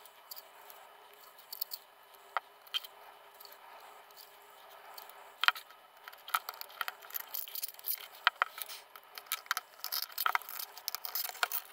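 Adhesive tape being peeled off a round headlight housing, with handling of the lamp: scattered crackles and scrapes, sparse at first and coming thick and fast in the second half.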